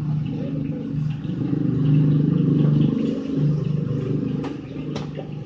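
A motor vehicle engine passing close by, its hum growing louder to a peak about two seconds in and then fading away. Two sharp clicks sound near the end.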